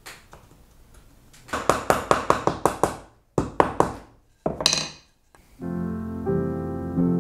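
Rapid run of light wood-on-wood knocks, about six a second, as the small bog oak and maple dovetail joint parts are tapped and pressed together, followed by a few more knocks and a brief scrape. Soft piano music comes in about two seconds before the end.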